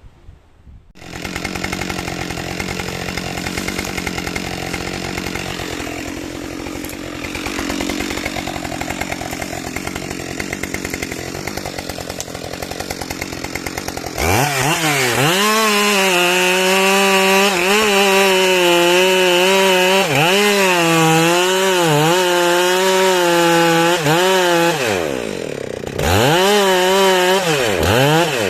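A small engine starts about a second in and runs steadily, then from about halfway gets louder and revs, its pitch rising and falling again and again, with a brief drop near the end.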